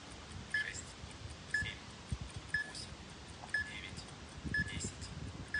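A short high electronic beep repeating once a second, a timer counting off the seconds of a grip hold, over a low uneven rumble of wind on the microphone.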